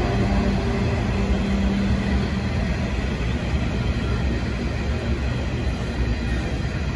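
Empty coal hopper wagons of a long freight train rolling past, with a steady wheel-on-rail rumble and clatter. The low engine hum of the diesel locomotives hauling them fades after the first couple of seconds.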